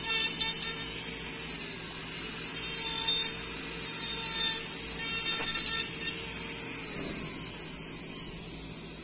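Dental lab rotary handpiece spinning a bur with a steady high whine, grinding in several short loud bursts against the acrylic of a wire-clasped upper retainer as it is trimmed and finished. The whine dies away over the last couple of seconds.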